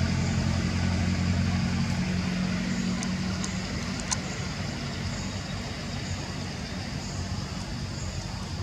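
An engine running with a low, steady hum that gradually fades away.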